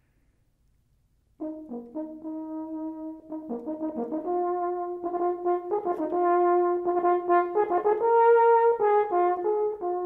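French horn played solo: after a brief near-silence it begins about a second and a half in with a phrase of separate notes, growing louder in the second half.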